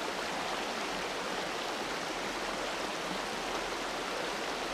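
Water from a small mountain waterfall splashing and flowing over rocks in a steady rush.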